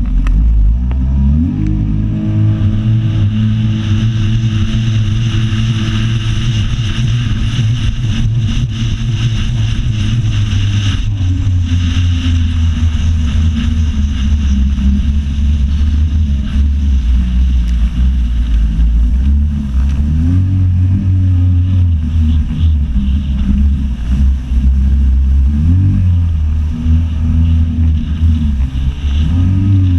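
Jet ski engine revving up and running at speed. Its pitch drops about ten seconds in and climbs again about twenty seconds in, with a couple of quick throttle swings near the end. A steady rushing hiss of water and wind runs under it.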